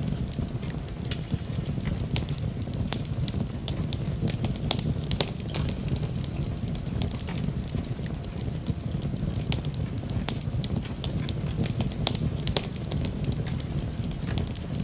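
Wood fire burning in a fireplace: a steady low rumble of flames with frequent irregular sharp crackles and pops.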